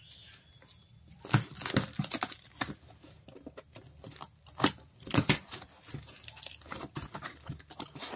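Snap-off utility knife blade slicing through packing tape and cardboard on a parcel: an irregular run of scrapes, clicks and tape tearing, with the loudest cuts about a second in and again around five seconds in.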